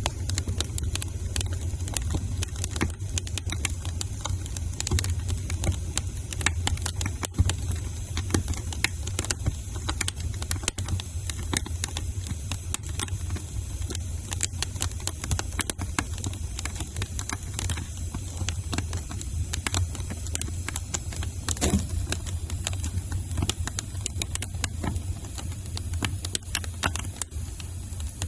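Wood fire crackling in a fireplace: many small irregular pops and snaps over a steady low rumble of the burning fire.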